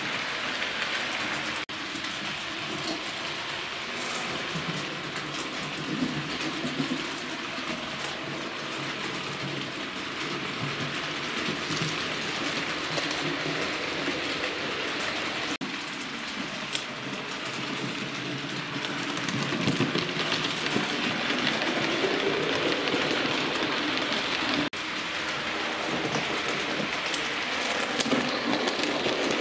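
Hornby OO-gauge model train, a Duchess-class locomotive hauling carriages, running on the layout track: a steady rattling hiss of the motor and wheels on the rails with faint clicks over the rail joints and points. It grows a little louder in the last third as the locomotive comes near.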